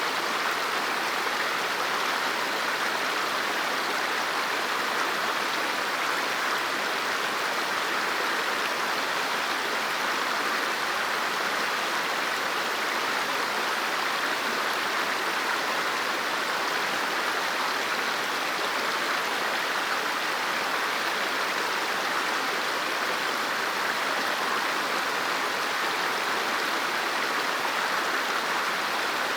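River water flowing over rocks, a steady even rush with no breaks.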